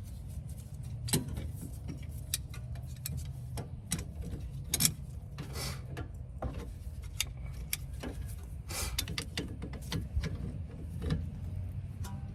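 Light metallic clicks, clinks and short scrapes of brake pads and their retaining clips being handled and fitted on a rear disc brake, over a low steady rumble.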